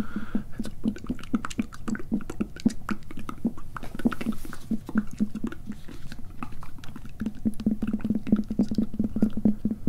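Close-miked ASMR mouth sounds and inaudible whispering: a dense run of quick wet clicks and soft scratchy taps, getting faster and more regular in the last couple of seconds.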